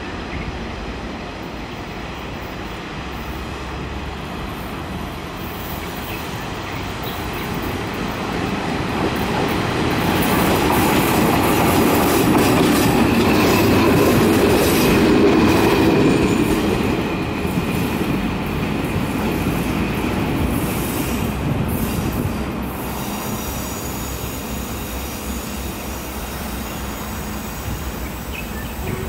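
Taiwan Railway E300-series electric locomotive passing slowly at close range on a sharp curve. It grows louder over several seconds, is loudest about halfway through, then fades. Its wheels give a thin, steady squeal on the curve while it passes.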